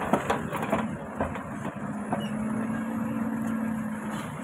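A Caterpillar backhoe loader's diesel engine runs steadily with a low hum, which stands out more clearly in the second half. It is preceded by a few sharp knocks and clicks in the first second or so.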